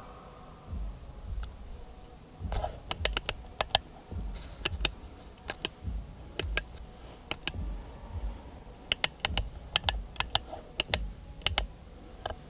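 Footsteps walking at a steady pace, a low thump about every second, with bunches of sharp clicks and crunches in between.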